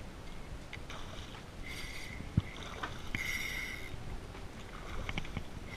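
Spinning reel whirring in about three short bursts while a hooked fish is played on a bent rod. One sharp knock about two and a half seconds in.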